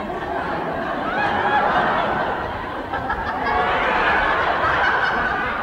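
A group of dancers laughing together, many voices overlapping, growing louder about halfway through.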